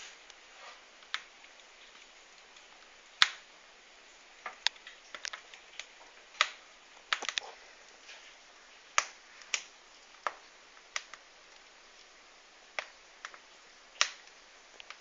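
Wood fire in a fireplace crackling: irregular sharp pops and snaps over a soft hiss, the loudest about three seconds in.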